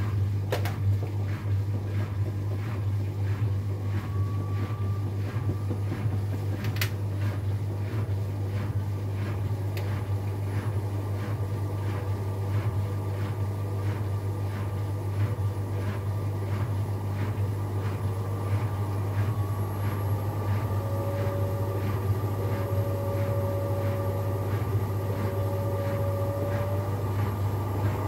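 AEG Lavamat 8000 Series washing machine spinning its drum at speed in the final spin of the programme: a steady low motor hum with a faint regular pulsing, and a faint whine coming in past the middle.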